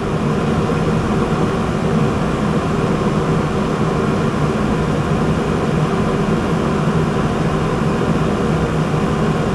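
Ruud 95% gas furnace running under fire, with burners lit and the draft inducer and circulating blower both on: a steady mechanical hum.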